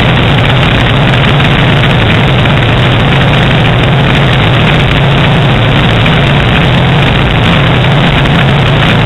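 Light high-wing airplane's engine running steadily in cruise flight, a constant low hum under a steady rushing noise of the airflow.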